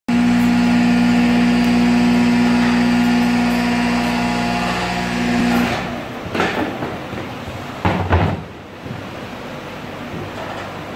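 Hydraulic press pump and motor running with a steady, loud hum as the press ram moves, stopping about five and a half seconds in. After that come a few knocks and scrapes as the moulded part is handled at the mould.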